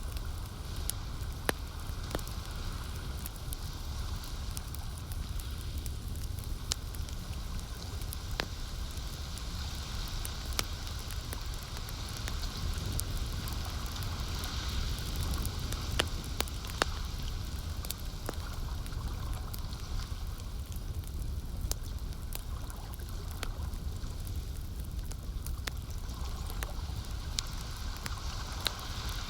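Campfire crackling, with scattered sharp pops at irregular intervals, over a steady wash of lake water and a low rumble.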